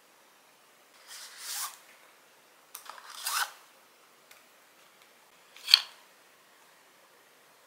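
Paperboard cosmetics carton being opened and handled: three short scraping rubs of the card, the last and sharpest as the glass bottle is slid out of the box.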